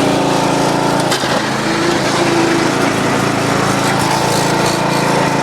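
John Deere LA100 lawn tractor engine running steadily, with a brief break in the sound about a second in.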